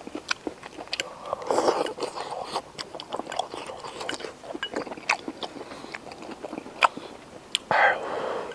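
A person eating from a porcelain bowl with chopsticks: scattered sharp clicks of the chopsticks against the bowl, with chewing and slurping of mouthfuls of boiled pork slices.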